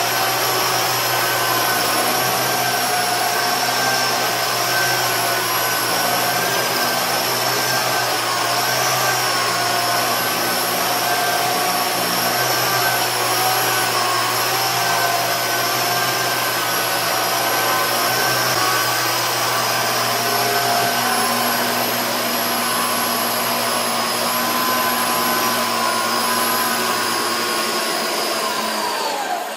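Small electric coaxial RC helicopter's motors and rotors whining steadily, then spinning down with a falling pitch right at the end.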